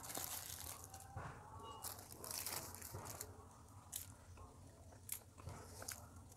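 Close-miked eating sounds: cheese-topped pizza bread torn apart by hand, then chewed, with irregular crunchy mouth noises and a few sharp clicks.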